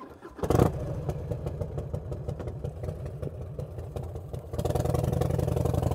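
1994 Harley-Davidson Fatboy's Evolution V-twin starting about half a second in and settling into a steady, lumpy run. It gets louder about four and a half seconds in as the bike pulls away at low speed.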